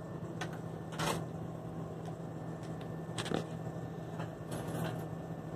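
A few light knocks and rustles of handling at a shop counter, the strongest about a second in and again after three seconds, over a steady low hum.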